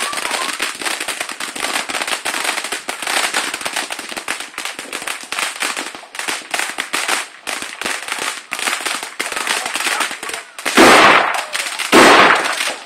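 Ground firework fountains burning with a dense, continuous crackling of sparks, then two loud bangs about a second apart near the end.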